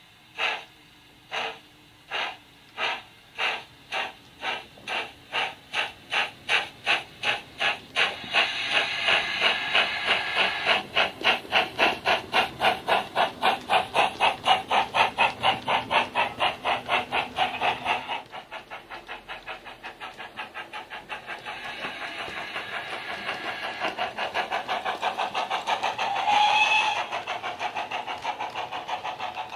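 Model steam locomotive's DCC sound decoder playing a GWR Manor steam sound file through speakers in the tender, chuffing as the loco pulls away. The beats come slow at first and quicken steadily, joined by a steady hiss for several seconds midway. Later the beats run on softer and faster, with a brief louder tone near the end.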